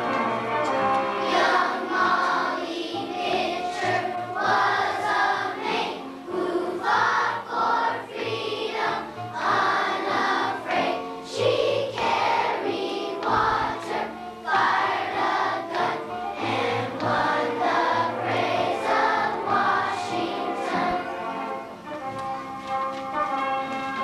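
Children's choir singing a song in unison over instrumental accompaniment. The voices drop out near the end, leaving the accompaniment.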